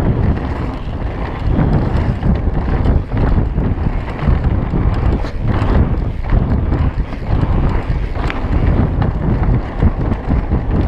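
Wind buffeting the camera microphone and mountain bike tyres rumbling over a dirt trail at speed, with frequent knocks and rattles from the bike over bumps.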